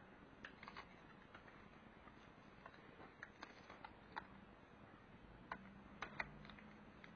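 Faint, scattered small clicks and ticks of fingers handling plastic and tape at the edge of an LCD panel, with a few sharper clicks in the second half.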